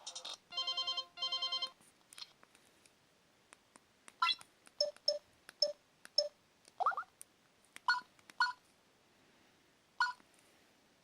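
Samsung SGH-Z500 mobile phone sounding short electronic tones: two brief buzzing tones in the first two seconds, then a sparse string of short beeps and chirps.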